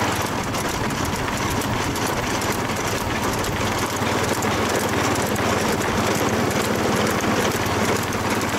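Steady engine and road noise of a motor vehicle travelling at speed, a constant drone without change.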